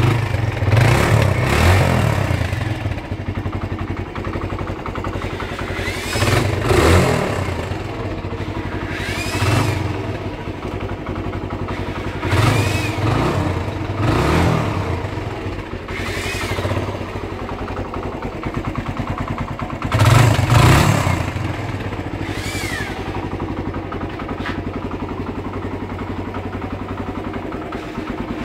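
Suzuki Thunder EN125's single-cylinder four-stroke engine idling steadily and being blipped into short revs several times, each falling back to idle.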